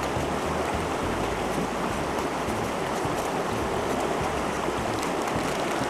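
A river flowing over rocks: a steady, even rush of water.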